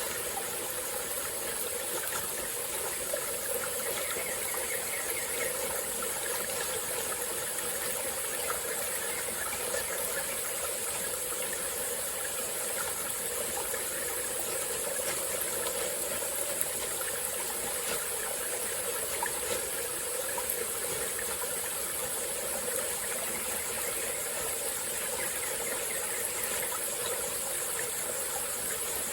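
Small forest stream flowing steadily over its bed, with a steady high insect chorus over it.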